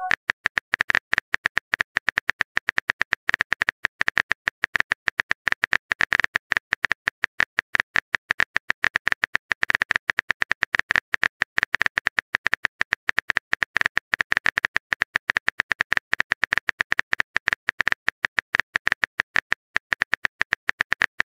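Phone keyboard typing sound effect: a rapid, even stream of key-tap clicks, several a second, with no pauses.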